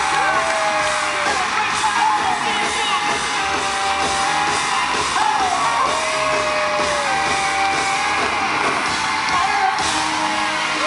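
Boy band's pop song performed live over a loud concert PA, with long held sung notes that slide down at their ends, heard from within the audience with fans screaming over it.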